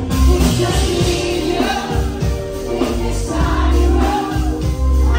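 Live pop music heard from the crowd at a concert: a male singer with band backing and heavy bass, the audience singing along.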